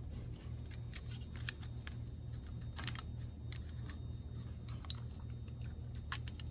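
Scattered light clicks and taps at an irregular pace, over a low steady hum.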